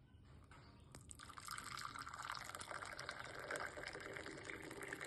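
A faint stream of liquid pouring, starting about a second in and running steadily until it stops just after the end.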